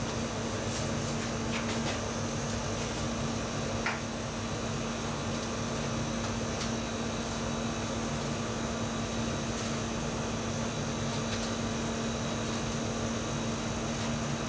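Steady hum of fan machinery with a low, even drone, under a few light clicks of metal baking trays being handled at a convection oven.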